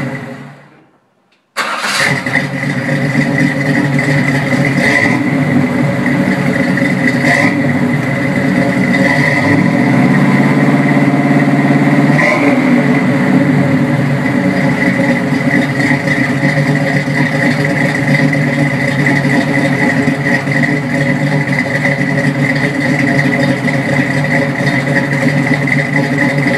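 1967 Chevy C10's 350 small-block V8 with a Thumper cam, running through a dual exhaust with Flowmaster 40 mufflers. The sound drops out for about a second near the start, then comes back suddenly. The engine then runs steadily at idle, with a few short throttle blips and a slightly higher stretch partway through.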